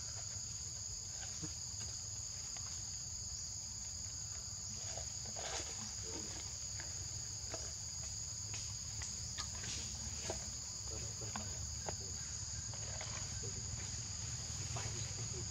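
Steady high-pitched insect drone on two close pitches, with scattered light clicks and rustles and a low steady rumble underneath.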